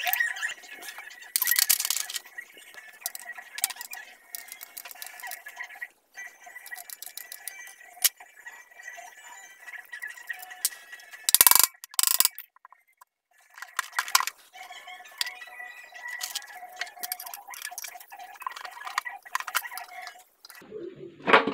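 Irregular metallic clicks and taps from hand tools and parts being handled on an aluminium CVT transmission case, over steady high tones; the loudest clatters come about 2 seconds in and again about halfway through.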